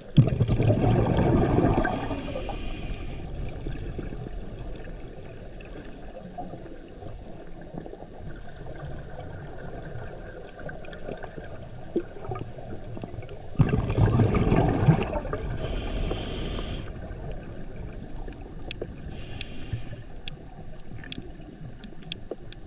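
Scuba diver's regulator heard underwater: two long rushes of exhaled bubbles, at the start and about fourteen seconds in, each followed by a hissing breath drawn through the regulator. Faint scattered clicks run underneath.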